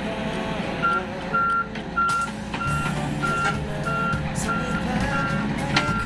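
Backup alarm beeping steadily, about one and a half beeps a second, starting about a second in, over the low running of the heavy machinery's diesel engines during unloading of an excavator from a self-loading truck.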